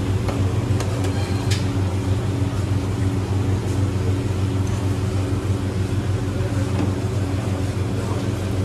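Steady low machine hum of commercial kitchen equipment, with a few light clinks of a spoon against the steel sauce bins in the first second or two.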